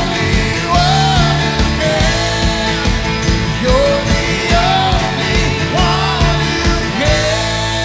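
Live worship band playing: a woman sings the lead melody over a Roland electronic drum kit, bass and guitars. The drum hits stop about seven seconds in while the singing and sustained instruments carry on.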